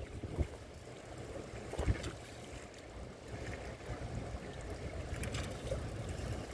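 Strong wind buffeting the microphone as a steady low rumble, with two brief knocks about half a second and two seconds in.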